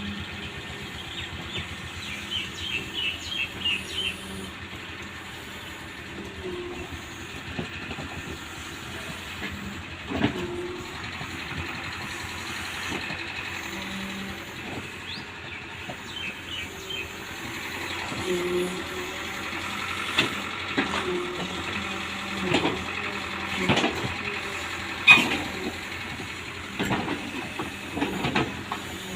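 Excavator running steadily with a hiss, overlaid by scattered knocks and clunks that come more often in the second half, the sharpest about 25 seconds in.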